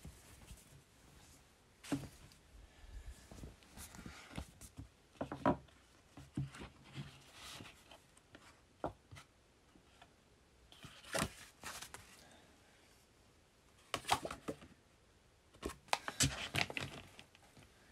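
Handling noises: a cotton t-shirt being shaken out and the paper pages of a printed booklet being handled and turned, with scattered light taps and knocks on a wooden desk. It comes as short rustles and sharp clicks spread irregularly, busiest in the last few seconds.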